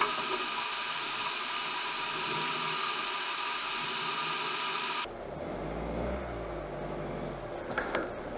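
A steady hiss for about the first five seconds, then a 4x4's engine running with a low rumble, with a couple of light knocks near the end.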